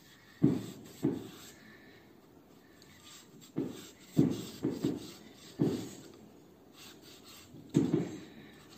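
A cleaver chopping down onto a wooden chopping board in irregular heavy strokes, about nine in all, some coming in quick pairs.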